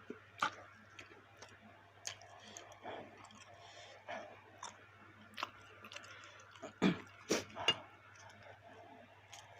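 Close-up chewing and mouth sounds of someone eating baso aci (tapioca-flour meatballs): irregular wet clicks and smacks, with a louder cluster of three about seven seconds in. A faint steady hum runs underneath.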